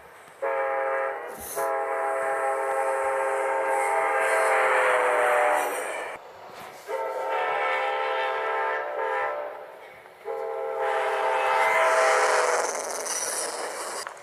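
Amtrak locomotive horn sounding three long blasts of a multi-note chord, the first about six seconds long and dropping slightly in pitch near its end.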